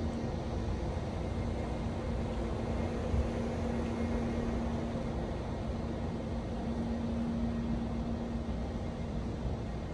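Steady low mechanical hum with a faint steady tone over it, holding level throughout.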